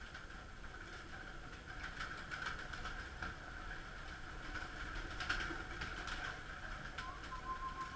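Flock of domestic pigeons in a loft at feeding time: wings flapping as birds fly up and land at the trough feeders, with scattered sharp taps and clatter over a steady hum. A thin steady tone begins near the end.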